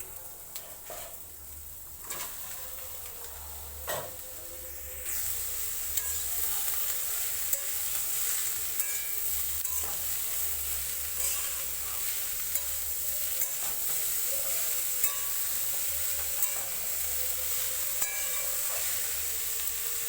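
Ash gourd, prawns and potatoes frying in a little oil in a pan, sizzling as a spatula stirs and scrapes the pan. There are a couple of knocks in the first few seconds, and the sizzle gets louder about five seconds in.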